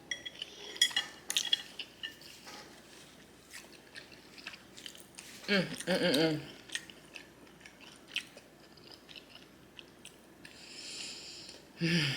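Close-miked chewing of garlic noodles and shrimp, with wet mouth noises and many small sharp clicks. There is a short hummed vocal sound about halfway through and a brief hiss near the end.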